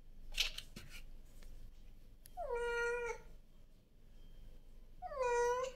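A cat meowing twice, two drawn-out meows about two and a half seconds apart, each rising at the start and then holding its pitch. A short sharp rustle comes just before them.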